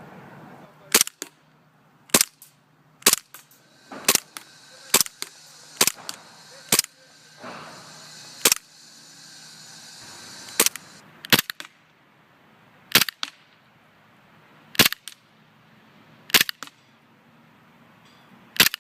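WE Glock 17 gas blowback airsoft pistol firing single shots, each a sharp crack with the slide's blowback. About fourteen shots come roughly one a second at first, then with longer gaps. For a few seconds in the middle a steady hiss runs between the shots.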